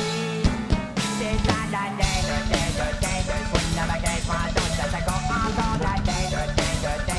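Rock drum kit played along to a backing song: crashes on Sabian cymbals and snare hits in the first two seconds, then a rapid, steady run of bass-drum strokes under cymbals and snare.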